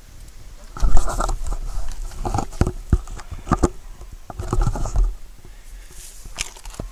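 Rustling and bumping of handling noise close to the microphone, in several irregular bursts with sharp clicks, loudest about a second in.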